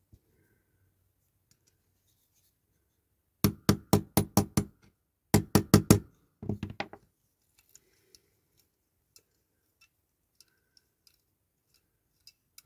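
Rapid sharp taps on a small die-cast toy part at the bench: two quick bursts of about half a dozen taps each, then a few softer ones, with faint ticks of handling after.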